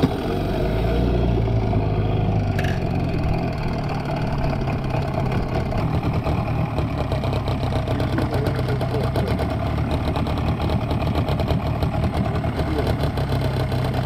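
Hangkai 12 hp outboard motor running steadily, pushing the inflatable boat along; it picks up slightly in the first second, then holds an even pitch.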